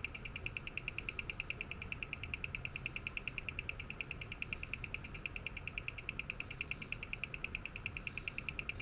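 A Citizen 8200A automatic watch movement ticking steadily on a timegrapher at about six beats a second, while its rate and amplitude are measured in the crown-up position.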